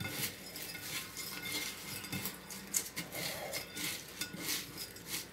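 Crushed crisps crunching and crackling as chicken pieces are rolled in them by hand in a ceramic bowl, in irregular rustles with light knocks against the bowl.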